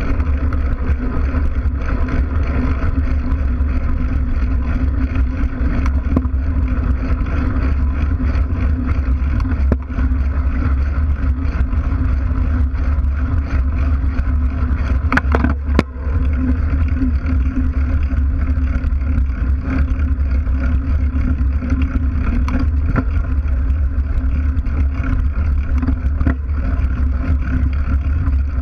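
Steady rumbling noise of a mountain bike riding along a dirt road, heard through a camera mounted on the bike: the knobby tyre rolling over packed dirt and gravel, with heavy low wind noise on the microphone. A brief clack or two about fifteen seconds in.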